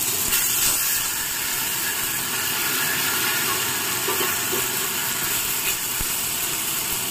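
Boiled arum flowers with tamarind and a dry-chilli and mustard-seed tempering sizzling in hot oil in a kadai (wok): a steady hiss.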